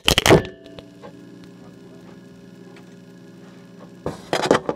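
Camera set down with a loud clatter, followed by a steady electrical hum made of several even tones, which cuts off abruptly about four seconds in as knocks and handling noises start.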